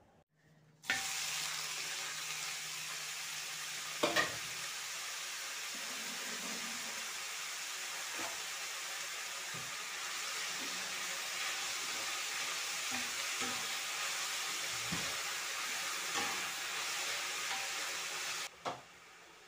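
Sliced mushrooms sizzling in oil in a steel frying pan as they are stirred with a spoon, which scrapes and knocks against the pan now and then. The sizzle starts about a second in and stops suddenly near the end.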